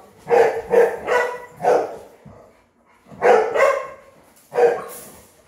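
A dog barking repeatedly: a quick run of four barks, two more about three seconds in, and a last one a little before the end.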